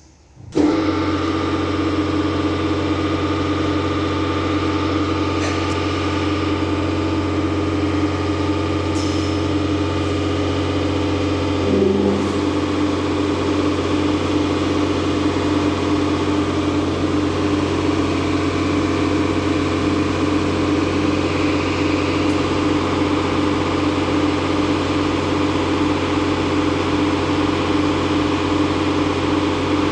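EVO 360 Softline automatic car wash running its high-pressure spray bar onto the car: a steady pump drone with a hiss of spraying water, heard through the car's glass. It starts abruptly about half a second in, and the hum changes pitch about twelve seconds in.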